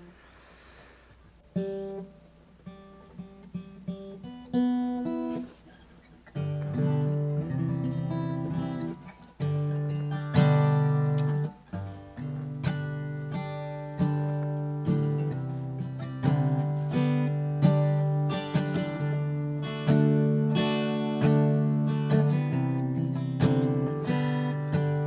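Acoustic guitar opening a song: a few single picked notes at first, then, from about six seconds in, steady rhythmic chords with strong bass notes.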